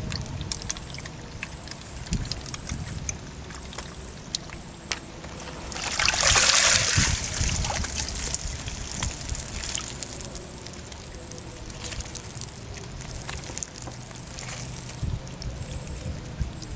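Water splashing and then pouring and dripping off a hand landing net as it is scooped out of shallow pond water. The splash starts suddenly about six seconds in and tails off over a few seconds, with scattered small knocks and rustles around it.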